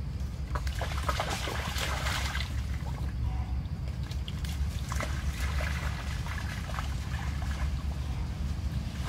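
Shallow muddy water splashing and sloshing as a macaque moves through it, in short bursts about half a second in and again around five seconds, over a steady low rumble of wind on the microphone.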